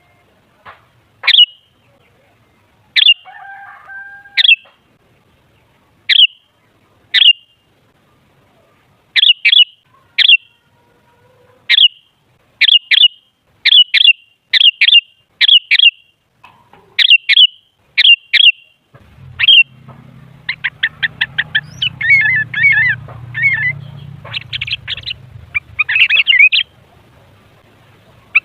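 Sooty-headed bulbul calling: short, sharp single call notes repeated at irregular intervals, then about two-thirds of the way through a fast run of chirps breaking into chattering, warbling phrases. A low hum runs under the later part.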